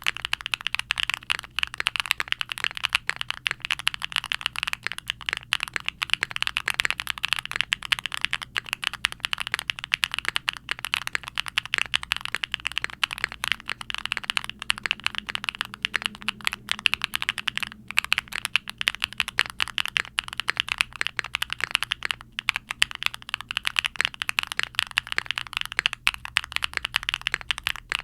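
Fast, continuous typing on a mechanical keyboard: a QwertyKeys Neo65 aluminium board with a POM plate and full foam dampening, fitted with HMX Siliworks Nap linear switches and GMK doubleshot ABS keycaps. Many quick keystrokes a second, each a short muted clack.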